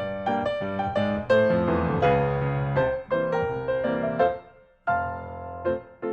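Background music: a piano-like keyboard melody of short notes, briefly pausing almost to silence about five seconds in.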